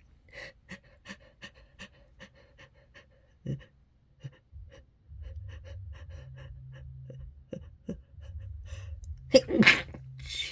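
A person's quick, short panting breaths, about three a second, as a sneeze builds up, then a loud sneeze near the end.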